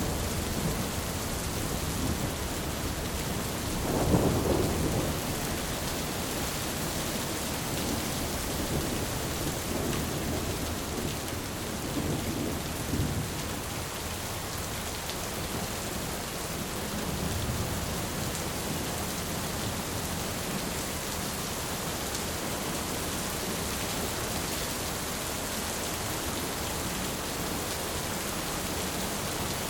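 Heavy rain pouring steadily, with thunder rumbling low: a strong roll about four seconds in and fainter rolls near the middle.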